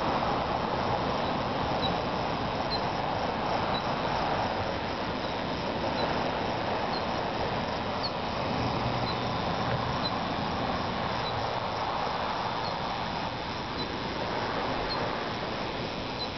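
Steady rushing noise of a thunderstorm's outdoor air, with a faint high chirp about once a second.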